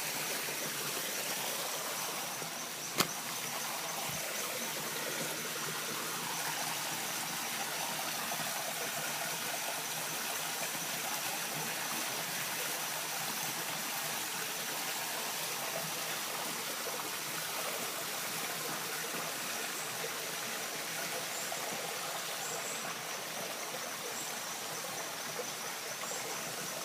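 Steady rushing of water falling from a tall waterfall, an even hiss without change, broken once by a single sharp click about three seconds in.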